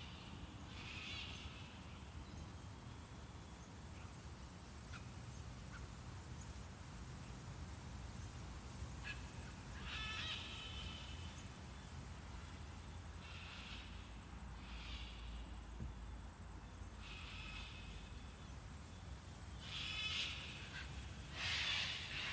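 Insects chirping in a fast, even, high-pitched pulse, with short birdcalls breaking in every few seconds.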